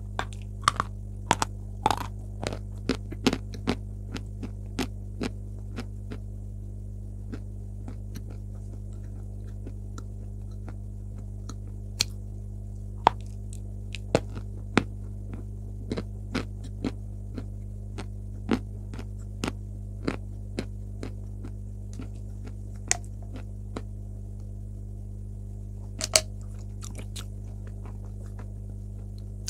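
Close-up chewing of dry lumps of eating chalk: sharp, irregular crunches as the chalk is bitten and ground between the teeth, over a steady electrical mains hum.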